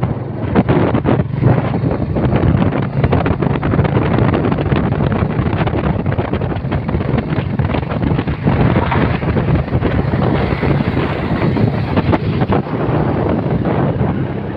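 Heavy wind buffeting on the microphone of a phone carried on a moving motorcycle, mixed with the steady running of motorcycle engines and road noise.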